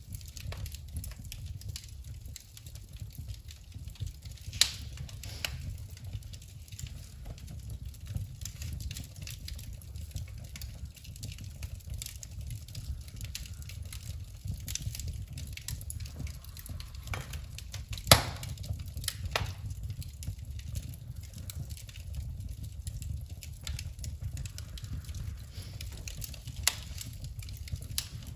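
Wood fire burning in a fireplace: a steady low rumble from the flames, with scattered sharp crackles and pops.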